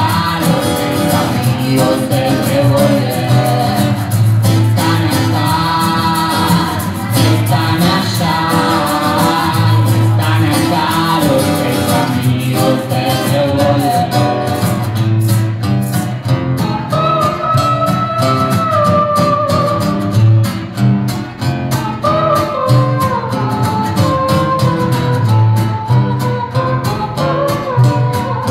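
Live acoustic band playing a song: strummed acoustic guitars over an upright double bass, with a sung melody line.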